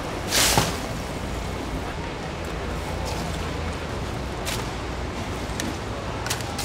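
Tap water pouring into a plastic tub of crushed ice and live mantis shrimp, a steady splashing hiss, with a louder surge just under a second in. A few sharp clicks and splashes follow as the shrimp thrash and are picked up from the water.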